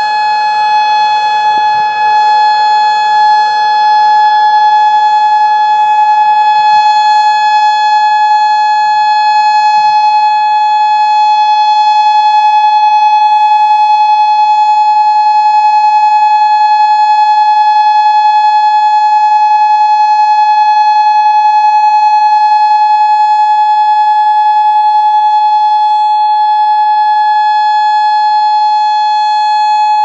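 Federal Signal Modulator 6024 electronic outdoor warning siren sounding its steady Alert signal: one loud, held tone that neither rises nor falls.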